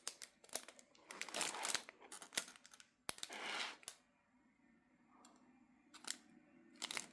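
Small plastic bags of diamond-painting drills handled and rustled in short bursts while one colour is searched for, then a few light clicks near the end.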